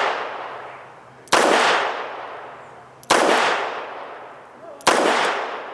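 Three shots from a Smith & Wesson Model 36 .38 Special snub-nose revolver, fired slowly about two seconds apart. Each sharp report trails off in a long echo.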